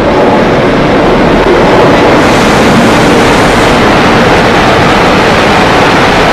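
Two Class 47 diesel locomotives with Sulzer V12 engines passing close, running steadily as a loud train-passing noise, then Pullman coaches rolling by; the sound turns briefly hissier about two seconds in.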